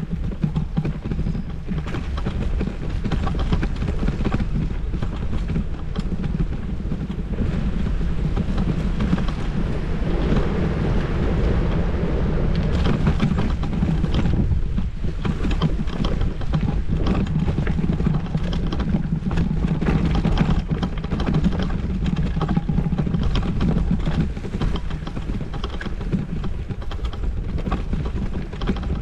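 Steady wind buffeting and road rumble picked up by a bicycle-mounted GoPro while riding, with frequent small clicks and rattles over it.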